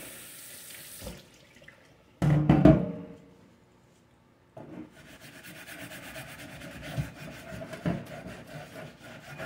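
Kitchen tap water running for about the first second, then a loud clank of the cast iron tortilla press knocked in the sink a little after two seconds in, with a short ring. From about four and a half seconds on, steady scrubbing of the cast iron to lift the caked-on grease.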